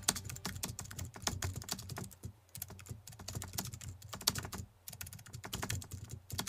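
Marker writing on a whiteboard: a quick run of small taps and scratches as the felt tip forms letters, broken by two brief pauses.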